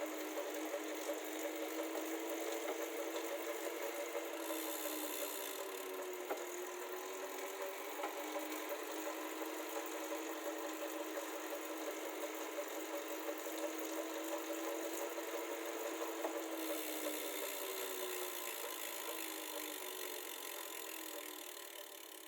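Elite Suito 2021 direct-drive smart trainer running, with a steady whine under a loud, rhythmic tapping or knocking that the owner takes for a fault, though Elite support calls it normal. The pitch dips briefly twice, and the sound fades near the end as it slows.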